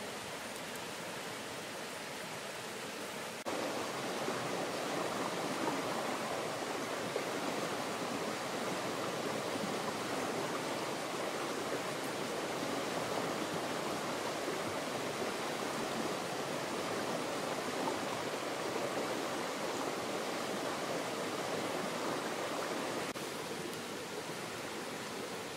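Steady rush of running water, louder from about three and a half seconds in and dropping back near the end.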